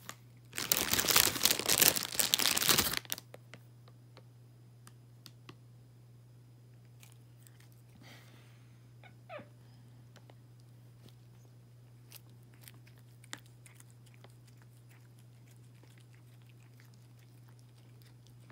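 A domestic cat chewing raw spinach leaves: faint, scattered crunching clicks over a steady low hum, after a loud rustling crunch lasting about two seconds near the start.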